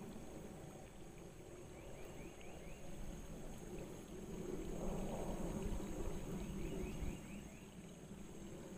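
Jet airliner flying high overhead, heard as a faint, distant low rumble that swells over a few seconds and falls away near the end.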